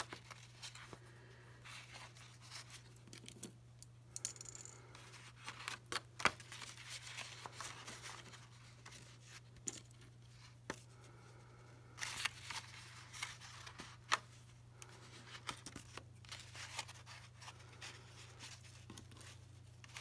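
A sheet of paper being handled and folded into a tray: irregular rustling and crinkling with a few sharp clicks as paper clips are slipped onto the folded corners, over a steady low hum.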